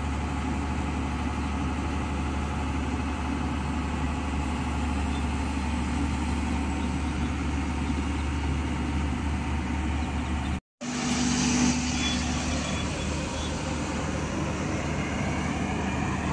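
SANY SY215C crawler excavator's diesel engine running steadily as the machine works its tracks and boom to lower itself off a trailer. The sound cuts out for a moment about two-thirds of the way through.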